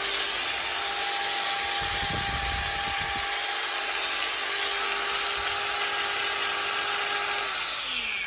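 Brushed universal motor of a Sencan 220 V power tool running at full speed with a steady whine, then switched off near the end and spinning down with falling pitch. Its carbon brushes are sparking, which the seller points out as the machine's fault.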